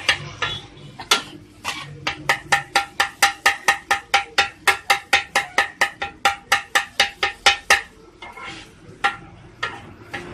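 Two metal spatulas chopping idli kothu on a flat griddle tawa: rapid rhythmic clanging at about five strokes a second, each strike ringing. The chopping pauses briefly about a second in and again about eight seconds in.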